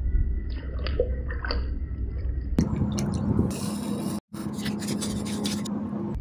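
Coffee being made: a few light clinks, then liquid pouring and splashing with a hiss. The sound cuts out completely for an instant about two-thirds of the way through.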